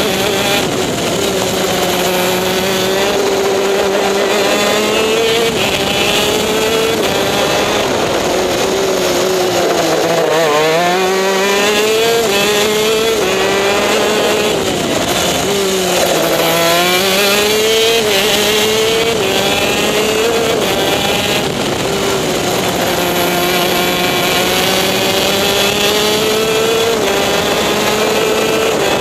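TM K9C 125 cc two-stroke shifter kart engine running hard at high revs, heard from on board the kart. The pitch dips twice in the middle as the kart slows for corners and climbs again under acceleration, with a few sudden drops in pitch at gear changes.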